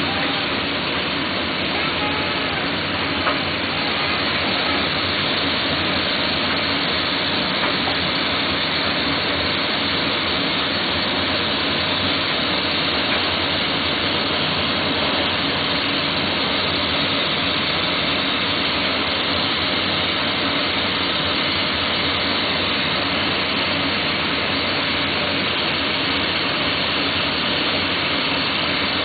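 Glassworking bench torch burning with a steady hiss, with a few faint ticks.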